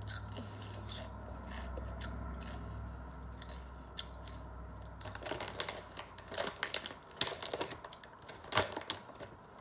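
Mouth chewing crunchy potato chips, with short crackly crunches that come thicker and louder from about halfway through, over a low hum that fades out around the middle.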